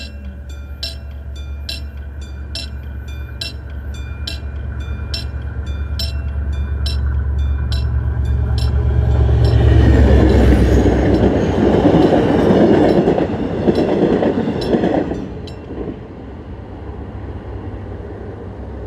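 Level-crossing warning bell dinging in a quick, even rhythm while a Mugunghwa-ho passenger train's diesel locomotive drones closer and louder. About ten seconds in, the train passes with a loud rush of wheels on rails for about five seconds. The bell stops and the sound falls away sharply as the train clears.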